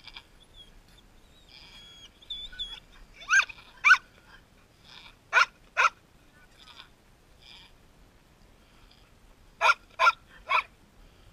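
Newborn goat kids bleating: short, high-pitched cries, two a little past three seconds in, two more about two seconds later, and three quick ones near the end.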